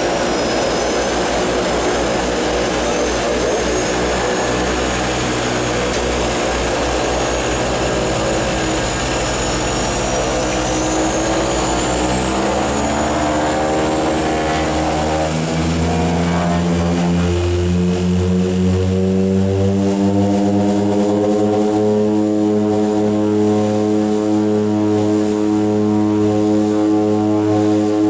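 Cockpit sound of a de Havilland Canada DHC-6-300 Twin Otter's two Pratt & Whitney Canada PT6A turboprops as the power levers are advanced on the runway. The propeller drone and a high turbine whine climb in pitch from a little before halfway, then hold steady at high power.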